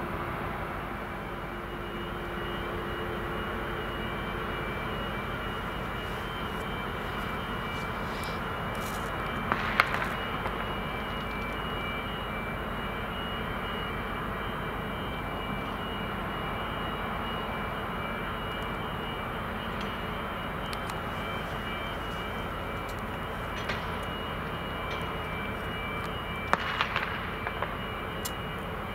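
Steady machinery roar from the berthed ro-pax ferry Mecklenburg-Vorpommern's engines and ventilation fans, with a faint high whine over it. A couple of short, sharp sounds come about ten seconds in and again near the end.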